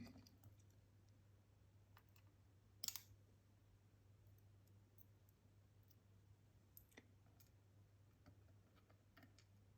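Near silence with a faint low hum, broken by scattered small clicks of tiny metal lock pins and cylinder parts being handled, with one sharper click about three seconds in.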